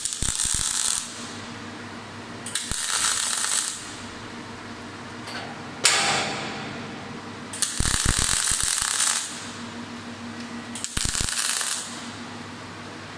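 MIG (gas-shielded) welding arc from a Power Mig 500 welder, crackling in a series of short stop-start bursts of about a second each as short runs of weld are laid on steel plate.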